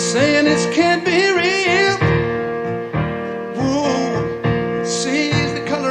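Live band music with piano and a voice singing a wavering line that slides between notes, without clear words.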